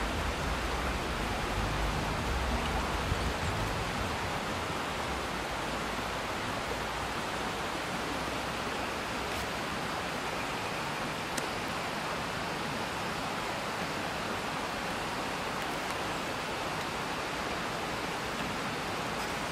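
Shallow stream running over stones in a riffle: a steady rushing of water, with a heavier low rumble in the first few seconds.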